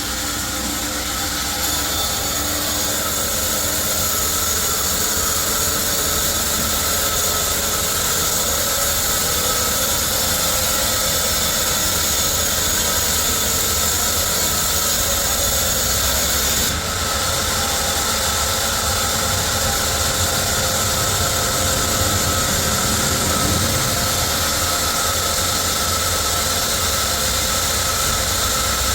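Sawmill machinery running steadily: a continuous mechanical hum and hiss with a few held tones, dipping briefly about two-thirds of the way through.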